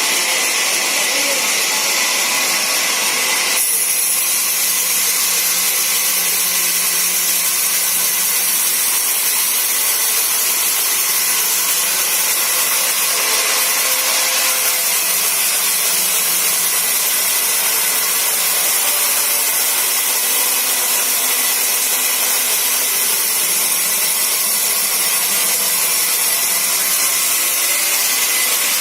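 Sawmill saw cutting through wood: a steady, unbroken noise, strongest in the high pitches.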